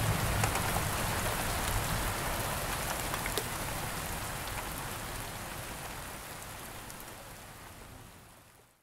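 Steady rain falling, with scattered sharp clicks of individual drops, fading out over the last few seconds.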